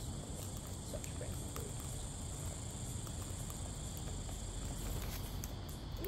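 Steady high-pitched chirring of insects, one layer of it stopping about five seconds in, over a low rumble.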